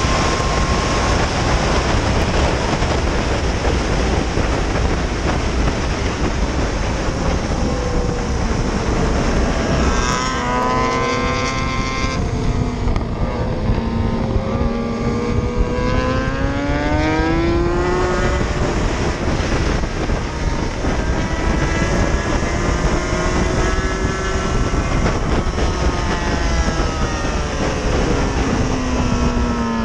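Heavy wind rush over the microphone of a motorcycle at track speed. From about a third of the way in, a petrol sport bike's engine just ahead revs, its pitch rising and falling several times with the throttle.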